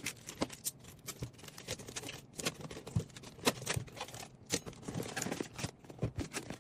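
Irregular light clicks, taps and small rattles of handling a new Shimano Vanford spinning reel and its packaging.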